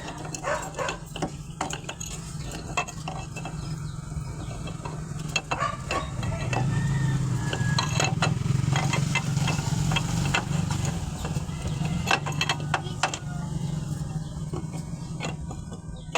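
Metal engine parts clinking and scraping as they are handled, with frequent short knocks over a steady low hum that grows louder in the middle.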